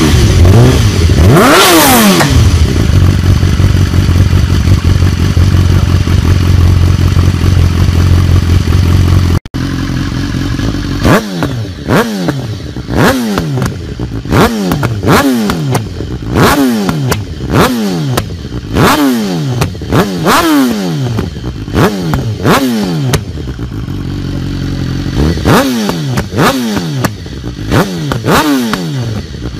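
BMW S1000R inline-four through an Akrapovic carbon slip-on exhaust: a quick throttle blip, then a steady idle. After a cut, a second S1000R with a different aftermarket slip-on is revved in short sharp blips, about one a second, each rising quickly and falling back toward idle, with a short break in the middle.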